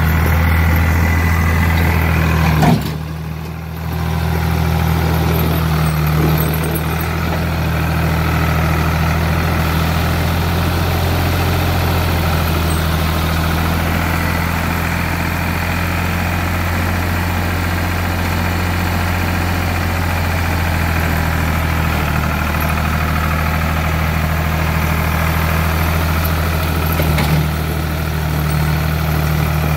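Ford 3000 tractor's three-cylinder engine running steadily as the front loader works snow. There is a brief dip in level about three seconds in.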